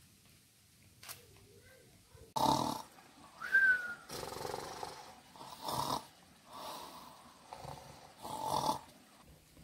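Men snoring: about six loud snores a second or so apart, starting about two seconds in, one with a short high whistle in it.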